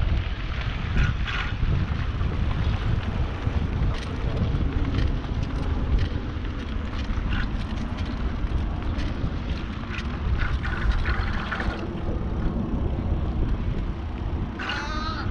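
Wind buffeting the microphone of a camera carried on a moving bicycle, a steady low rumble with a few faint clicks.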